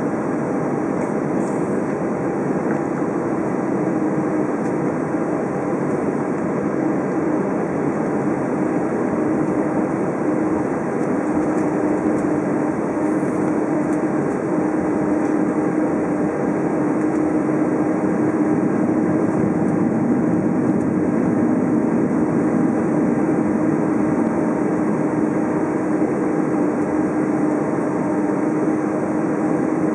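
Dornier 328 twin turboprop engines running at taxi power: a loud, steady drone with a held hum.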